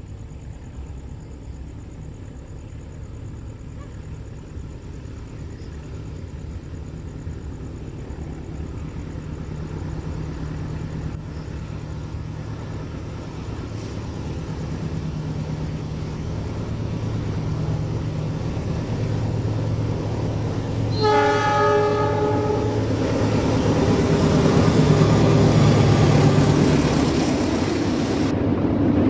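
Indonesian diesel-electric locomotive hauling a passenger train, approaching with its engine hum growing steadily louder. About three quarters of the way in it sounds its horn in one blast of about two seconds, and then the train passes close by with loud wheel and rail noise.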